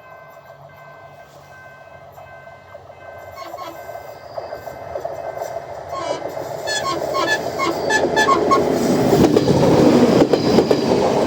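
Passenger train approaching on the rails, growing steadily louder as the wheel and rail noise builds. A quick run of clicks comes about halfway through, as the wheels pass over rail joints.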